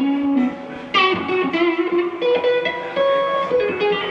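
Suhr electric guitar played through a 3rd Power Dream Weaver combo amplifier: ringing notes that die down, then a freshly struck chord about a second in followed by a run of changing single notes.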